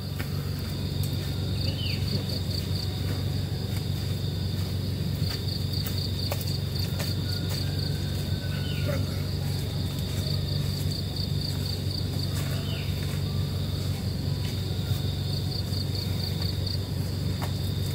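Crickets trilling steadily, with louder pulsed chirping runs every few seconds, over the low steady hum of the stationary vehicle's engine idling.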